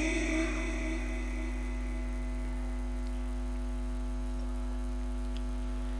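Steady electrical mains hum from a microphone and PA sound system, with a recited phrase echoing away during the first second.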